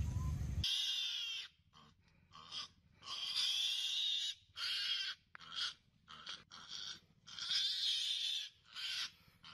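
A string of short, high, wheezy animal calls in uneven bursts, each under a second, about a dozen of them. Before them, a low rumble cuts off suddenly about half a second in.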